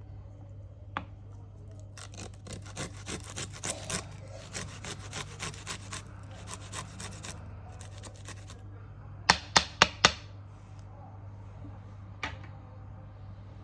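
Hand preparation of an ingredient, heard as a run of quick rasping strokes, about three a second, lasting some five seconds. About nine seconds in come four sharp knocks in quick succession, and one more near the end.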